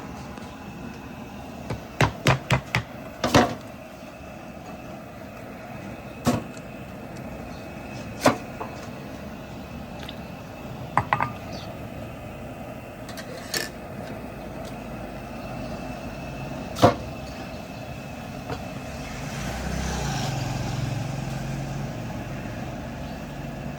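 Scattered sharp clinks and knocks of metal dishes and utensils over steady street noise. About three-quarters of the way through, a passing vehicle's low rumble swells and fades.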